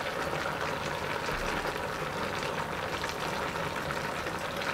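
A pot of vegetables and broth simmering, with a steady bubbling hiss, as a thick sauce is poured into it.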